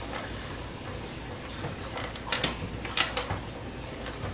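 Popcorn kernels popping in a hot pan: a few sharp, separate pops, one about two and a half seconds in and a pair near three seconds, over a low steady hiss.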